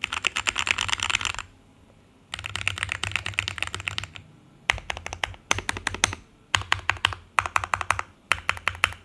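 Sades Tenka mechanical keyboard with stock Gateron CAP Yellow v2 linear switches, foam-filled plate and case, typed on quickly in bursts of keystrokes: two long runs, then five shorter ones, with brief pauses between.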